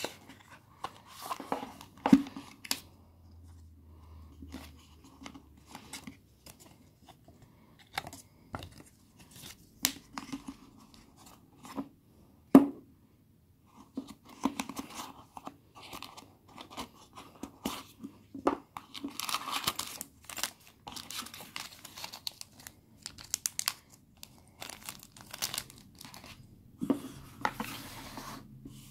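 Cardboard packaging being handled: a paper sleeve sliding over a small box, the box opened and its insert pulled out. The handling brings rustling and scraping with scattered sharp knocks and clicks, the loudest about two seconds in and again about twelve seconds in.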